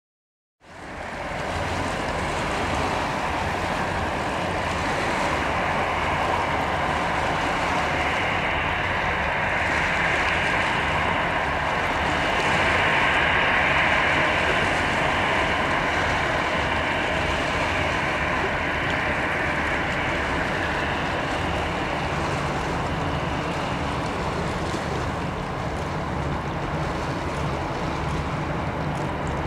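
Airbus A320's jet engines running, a steady noise that comes in right at the start and swells a little around the middle, with wind on the microphone.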